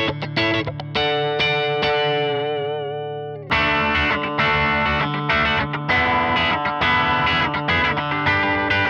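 Reverend Eastsider S single-coil electric guitar played through an amp with a driven tone: strummed chords, one held from about a second in that rings out with a wavering pitch and fades, then fresh strumming from about three and a half seconds in.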